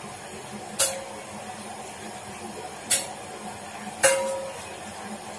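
Steel kitchen utensils clinking together three times, each strike ringing briefly, over a steady background hiss.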